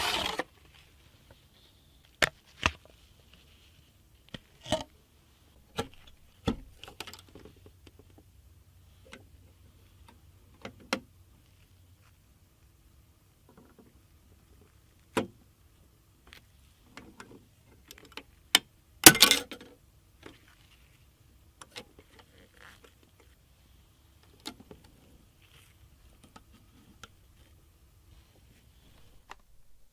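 Scattered small clicks and clacks of a CPU being fitted into a motherboard's socket: metal and plastic parts being handled and set in place, with a louder rattling clack about two-thirds of the way through.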